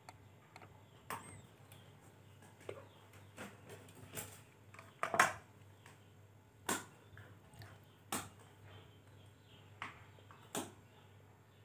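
Light plastic clicks and taps, several spread out with the loudest about five seconds in, as pieces of plastic drinking straw are handled and set down on a hard tabletop.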